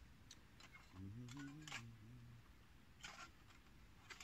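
Faint, scattered light clicks and taps of an Emberlit bush stove's metal plates being handled and slotted together, with a short low hum from a man's voice about a second in.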